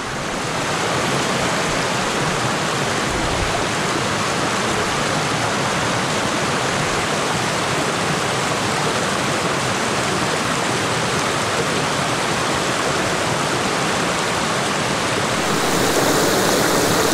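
Small mountain stream with a steady, even rush of flowing water, growing a little louder near the end.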